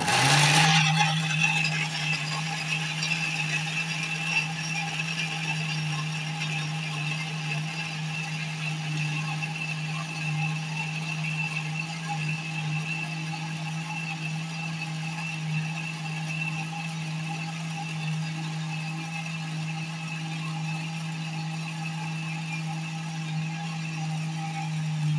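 Kenwood countertop blender motor switched on and running at a steady pitch, blending carrots, ginger and water into juice; it starts louder in the first second, then holds steady until it stops near the end.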